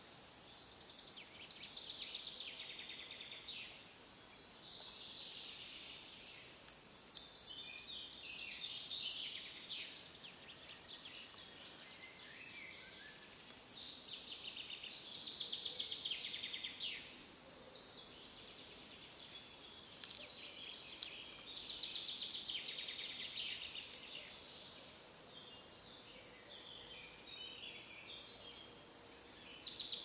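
Songbirds singing short, fast, high-pitched phrases, one every few seconds, over quiet woodland ambience, with a few sharp clicks.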